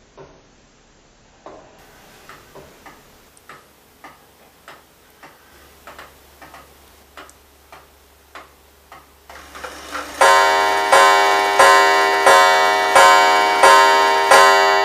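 Antique Waterbury eight-day weight-driven clock ticking steadily. About ten seconds in, its coiled wire gong strikes seven times, evenly spaced, each stroke ringing on over the next.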